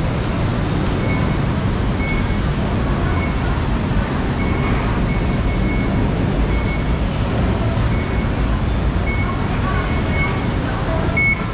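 Busy city street ambience: a steady rumble of road traffic with passers-by talking, and a faint short high beep recurring irregularly.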